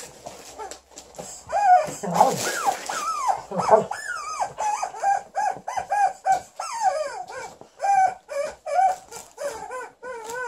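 Alaskan Malamute whining and yipping in a quick run of short cries that bend up and down in pitch while she chews a rubber chicken toy, with a burst of rustling about two seconds in.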